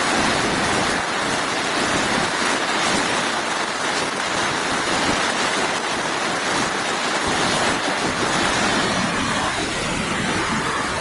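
Steady rushing noise of wind and ocean surf on the beach, with no distinct events.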